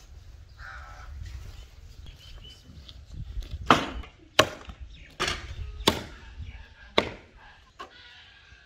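Meat cleaver chopping goat meat on a wooden log block: about six sharp chops, roughly a second apart, in the second half.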